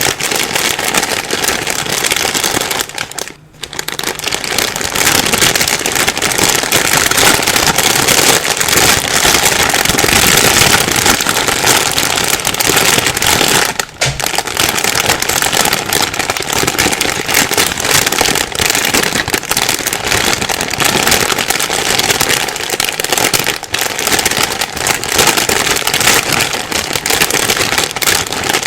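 Plastic bag being rustled and crumpled continuously: a dense, loud crinkling crackle, with a brief pause about three seconds in and a short break near the middle.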